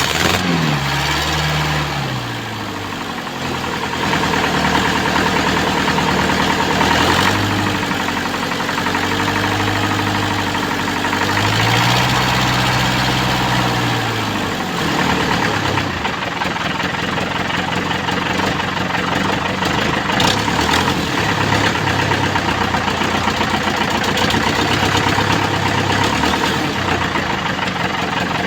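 Mitsubishi Canter's 4D32 four-cylinder diesel engine running after an injector rebuild, idling and revved up and let back down several times, its pitch rising and falling. The exhaust is leaking.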